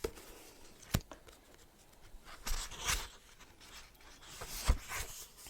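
Paperback book being handled and its pages turned: paper rustling, with a light knock about a second in and a sharper one near the end.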